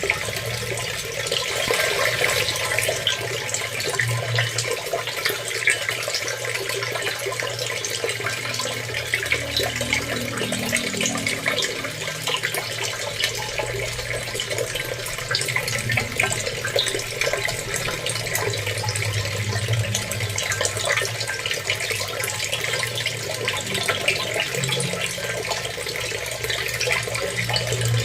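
Water running steadily, full of small splashes and trickles.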